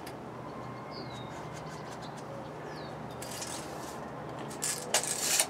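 Faint bird chirps, a few short falling notes, over a steady background hum. Near the end come several short bursts of rustling and scraping from something being handled, the loudest sounds here.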